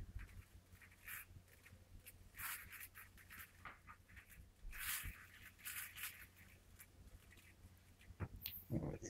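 Faint, scattered rustles and light scrapes of hands sprinkling a dry salt and coriander seasoning mix from a small steel bowl onto raw bonito fillets in a plastic tray and rubbing it in.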